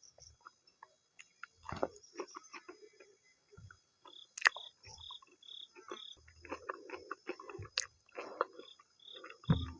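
Close-up wet chewing and mouth clicks of someone eating maize dhido with nettle (sisnu) curry. Behind it, an insect chirps in short, evenly spaced high pulses, in two runs: one about halfway in and one near the end.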